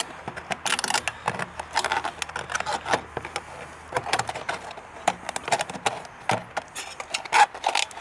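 Victorinox scissors shearing through the thin sheet steel of a tin can: an irregular run of short metallic snips and crunches as the blades bite and close.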